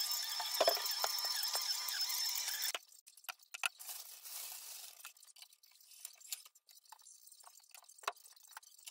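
A steady high-pitched whine with hiss that cuts off abruptly about three seconds in, followed by scattered light knocks, clatter and rustling of objects being handled and moved.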